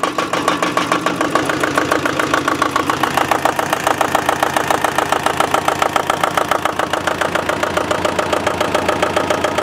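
27 hp Lombardini diesel engine on a Bandit stump grinder running steadily, with a rapid, even pulse from its firing.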